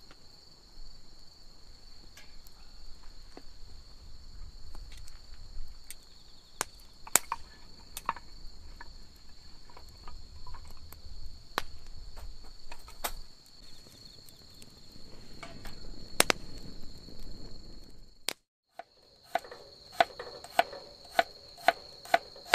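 A steady, high insect trill, with scattered sharp knocks and clicks over it. Near the end the sound drops out briefly, then comes back with a regular ticking over the trill.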